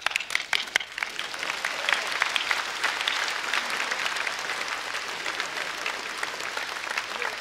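Audience applause: a few separate claps at first, swelling within about a second into dense, steady clapping from many hands, which eases slightly near the end.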